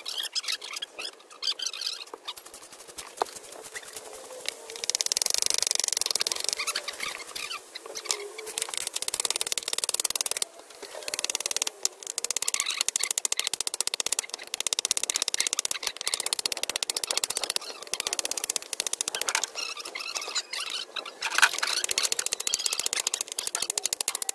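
Hammer tapping and chipping concrete blocks: a rapid string of sharp clicks and knocks.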